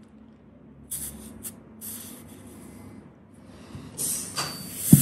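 Compressed air hissing at the fill connector of a PCP air rifle being charged with a hand pump: short spurts at first, then a louder steady hiss about four seconds in, with a sharp click near the end.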